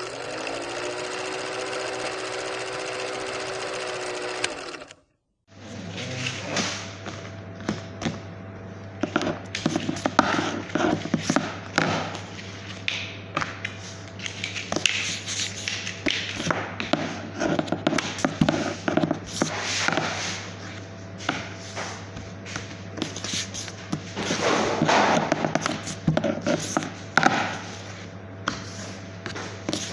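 A held electronic tone with overtones, rising at the start and holding for about four and a half seconds, then cutting out. From about five and a half seconds in, a steady low machine hum runs under frequent taps, knocks and scrapes of bread dough being rolled and handled with a plastic rolling pin on a stainless steel worktable.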